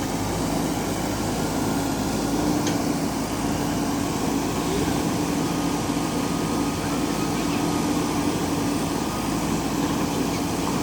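Diesel engine of a JCB backhoe loader running steadily under work.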